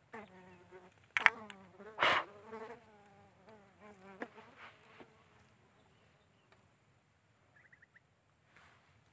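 A flying insect buzzing close to the microphone for about five seconds, its pitch wavering, with two louder bumps in the first two seconds. A steady high-pitched insect drone runs underneath.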